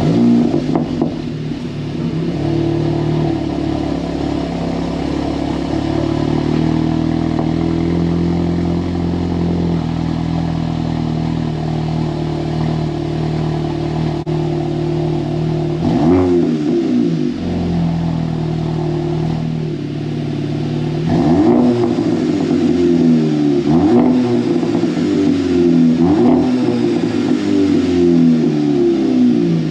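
2021 Volkswagen GLI's 2.0-litre turbocharged four-cylinder breathing through a new MBRP 3-inch cat-back exhaust. It flares on start-up and settles into a steady idle. About halfway it is revved once, then blipped several times in quick succession near the end.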